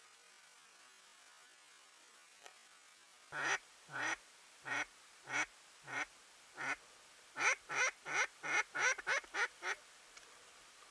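Loud duck quacking: six single quacks spaced a little over half a second apart, then a quicker run of about eight quacks.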